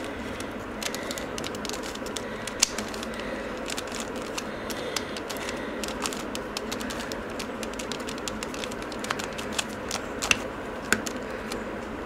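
A mirror cube being turned in the hands: irregular small plastic clicks and clacks as its layers are twisted, a few sharper snaps among them, over a steady low hiss.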